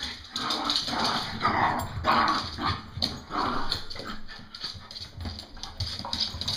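Two puppies play-fighting over a ball, giving a string of short, rough vocal bursts about once every half second to second.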